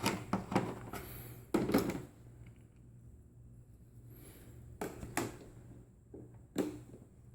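Scattered clicks and knocks of handling as a blade is fitted to a Heiniger Sapphire clipper, over a faint steady low hum.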